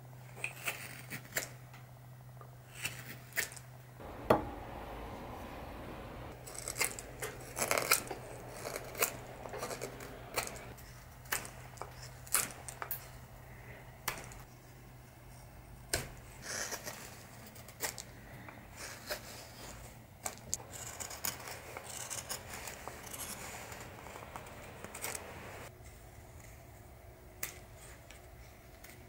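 Carving knife whittling a wooden horse blank by hand: irregular short slicing cuts and scraping strokes as shavings come off the wood, with one sharper snap about four seconds in.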